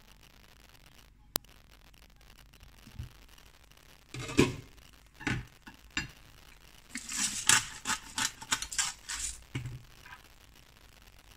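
Glass pan lid with a steel rim being lifted off a frying pan and set down: a string of sharp clinks, knocks and rattles, the loudest about four seconds in and a quicker clatter of small knocks a few seconds later.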